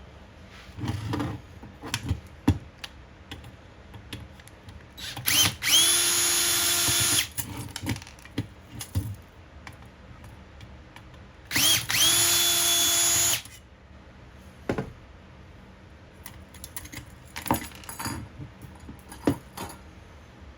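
Power drill running in two short bursts, each spinning up quickly to a steady whine, backing screws out while a fog light is taken apart for scrap. Clicks and knocks of parts and tools being handled come between the bursts.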